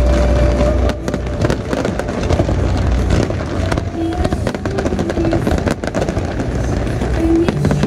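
Fireworks going off: many sharp cracks and pops in quick succession over a continuous low rumble.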